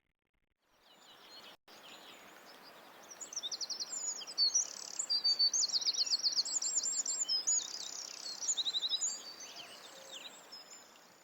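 Small birds chirping and singing in rapid high trills and twitters over a steady background hiss. The sound starts about a second in, is fullest in the middle and thins out near the end.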